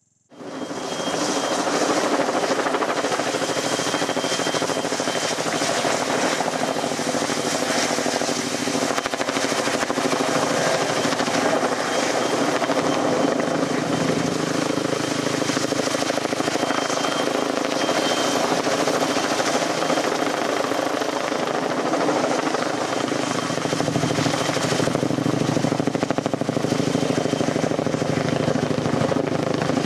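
Helicopter hovering close overhead under load, lifting a log with a root wad on a long line; its rotor and engine noise is loud and steady, with a thin steady whine above it. It starts about half a second in.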